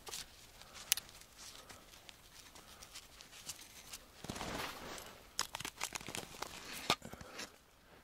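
Rustling and crinkling handling noises, with several sharp clicks and a denser stretch of rustling about four seconds in.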